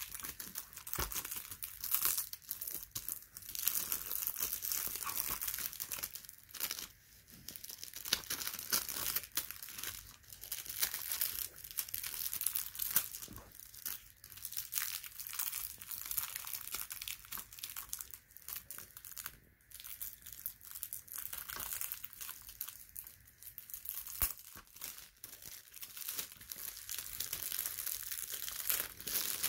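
Clear plastic shrink-wrap being peeled and torn off a Blu-ray case by hand, crinkling continuously with irregular sharp, high crackles.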